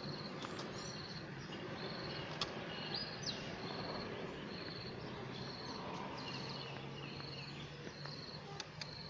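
Outdoor ambience: an insect chirping in short, high pulses about once a second, with a few bird calls and an occasional faint click.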